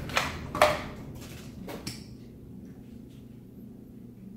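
A small vanilla extract bottle being opened and handled, giving a few sharp clicks and taps over the first two seconds, then only a low steady hum.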